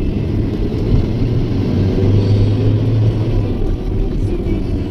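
Engine and road noise of a moving vehicle in city traffic: a steady low rumble, with a stronger low drone swelling for about a second and a half near the middle.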